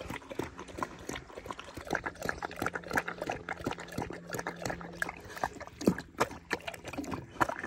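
Rottweiler eating moistened kibble from a bowl: wet chewing and smacking in a quick, irregular run of clicks.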